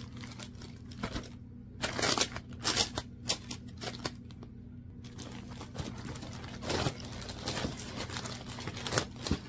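Plastic packaging crinkling as a clear vinyl handbag organizer is handled and pulled out of its wrapping bag. Separate crackles start about two seconds in and become almost continuous crackling about five seconds in.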